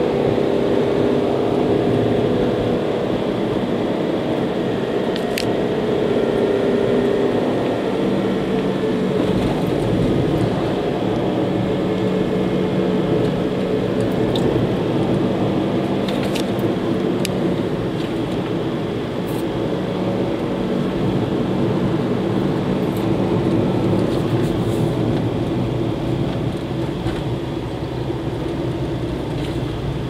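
Car engine and tyre noise heard from inside the cabin while driving at a steady speed, a constant drone with a few faint clicks.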